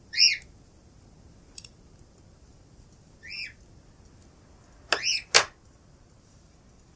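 Pet cockatiel screams: one short call at the start, another about three seconds in, and two more close together about five seconds in, each pitch rising then falling.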